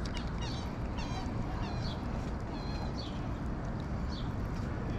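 Birds calling over and over in short, high, hooked calls, about two a second, over a steady low rumble. A sharp click comes right at the start.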